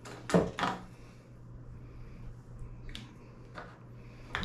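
Handling sounds on a wooden workbench while filling a PVC pipe with spray foam: two sharp knocks close together about a third of a second in, a few lighter clicks later, and another pair of knocks near the end, over a steady low hum.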